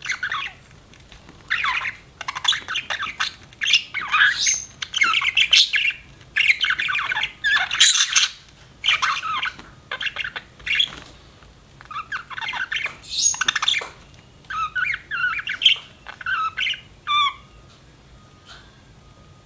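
Budgerigars chattering and squawking in quick runs of warbled calls with short pauses. The calls thin out to a few faint notes in the last couple of seconds.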